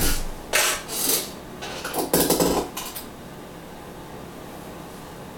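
Handling noises of a porcelain bowl being picked up and turned in the hands: a few short knocks and scrapes in the first three seconds, the longest about two seconds in, then quiet.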